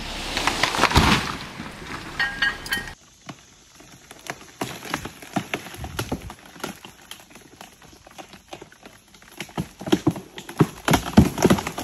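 A tall pine tree falling: a rushing crash through branches with a heavy thud about a second in. After a cut, a run of irregular sharp clicks and knocks follows, louder near the end.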